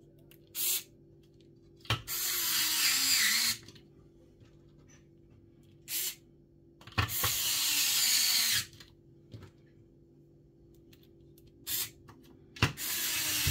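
Electric precision screwdriver whirring as it drives small screws into a console fan housing. It runs three times for about a second and a half each, with three brief blips in between.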